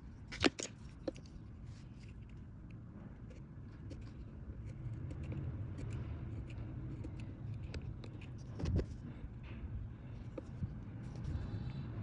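Small metal carving chisel scraping and cutting into a wooden block, a run of light scratchy clicks as wood is shaved out to hollow a wooden mould. A sharper knock comes about half a second in and a duller thump near nine seconds.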